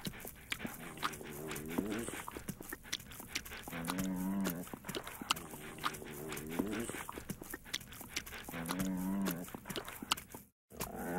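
English bulldog puppy making low, moaning, moo-like groans, one every two seconds or so, with wet smacking clicks from its licking between them. The sound cuts out completely for a moment near the end.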